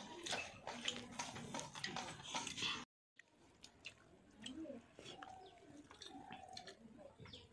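People eating with their hands from a steel plate: wet chewing and lip smacks, with quick small clicks of fingers working rice and fish curry. The sound cuts out completely for a moment about three seconds in, then carries on quieter.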